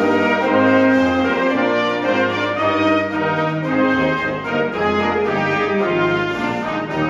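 A school concert band playing, brass to the fore, in held chords that change every half second or so over a bass line.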